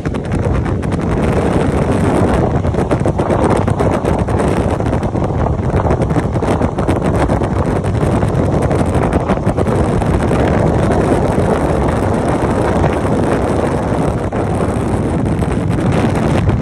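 Steady rushing wind noise on the microphone of a motorcycle riding at speed, with the bike's running noise underneath.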